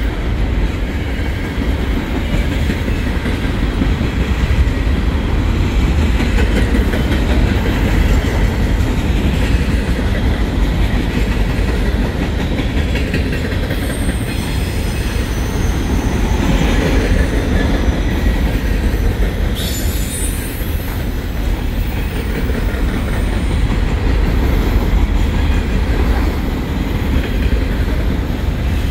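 Freight train of high-sided open-top waste cars rolling past: a steady rumble and clatter of steel wheels on the rails. Thin, high wheel squeal comes in about halfway through and fades a few seconds later.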